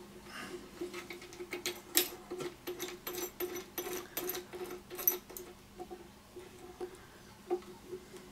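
A steel nut being spun by hand onto a terminal bolt, over a flat washer, spring washer and cable lug: small metallic clicks and taps, busiest in the first five seconds and then sparser, over a faint steady hum.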